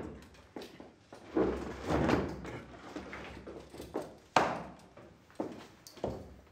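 Footsteps and knocks on a wooden floor: about six irregular thuds, the sharpest a little past four seconds in.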